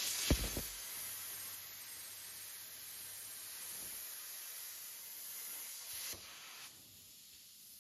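CNC plasma torch cutting 15 mm steel plate: a loud hiss as the arc pierces the plate, with a sharp thump about a third of a second in, then a steady hiss as the torch moves along the cut, dropping in level near the end.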